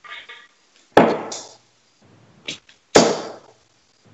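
Steel-tip darts hitting a Winmau Blade 5 bristle dartboard: two sharp thuds about two seconds apart, one about a second in and one about three seconds in, each dying away quickly, with a lighter click between them.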